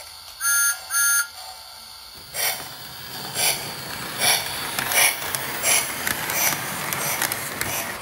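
Lionel O-gauge Thomas the Tank Engine toy train: two short electronic toots, then the locomotive starts off about two seconds in, its wheels rumbling on the track under a steady beat of sound-effect steam chuffs that quickens as it gets under way and passes close by.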